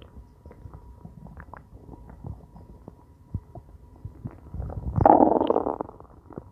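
Hungry stomach growling: small scattered gurgles, then a louder drawn-out gurgling rumble about five seconds in that lasts about a second.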